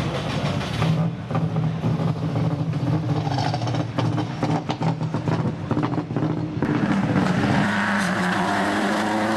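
Subaru Impreza WRX STi rally car's turbocharged flat-four engine running at low revs, with many short clicks over it. The sound changes abruptly about two-thirds of the way through.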